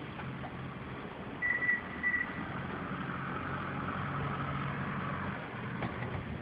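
An engine running steadily, with two short high beeps in quick succession about a second and a half in.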